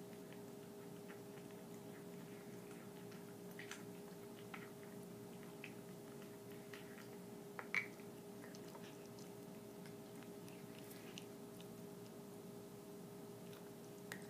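A pet's teeth making faint, irregular crunching clicks, the weird mouth noise it keeps repeating, with one louder click about eight seconds in.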